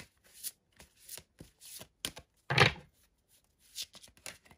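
A tarot deck being shuffled by hand: irregular soft slides and flicks of the cards, with one louder thump about two and a half seconds in.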